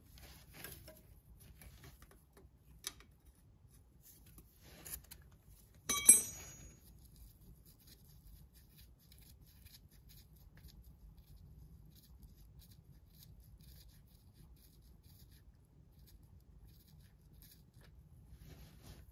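Hand work with a 9/16 open-end wrench on an oil level plug in a Mity Kat dozer's cast gear case: a few light metal clicks, then one loud metallic clank with a short ring about six seconds in. After that there is only faint rubbing as the plug is turned out by hand.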